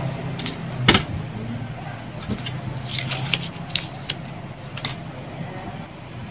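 A low engine-like hum that fades away, with scattered sharp clicks over it, the loudest about a second in.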